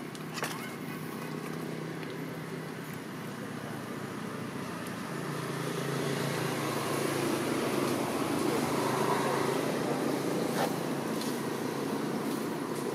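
A motor vehicle engine running steadily, growing louder through the middle and easing back a little near the end, with a couple of brief clicks.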